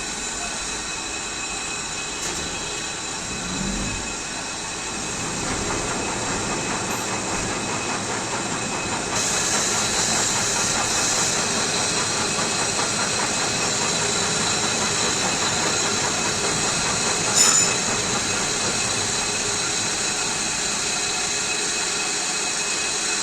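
Disc brake rotor being skimmed on a cutting machine, running steadily with a metallic scraping and steady high whining tones. About nine seconds in the sound steps up and becomes brighter and harsher, and a short sharp clatter comes a little after the middle.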